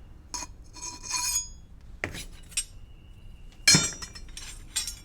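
Metal hand tools, a file and wrenches, clinking and clanking against each other as they are handled and set down. There are about six separate strikes, some leaving a short metallic ring, and the loudest comes near the end.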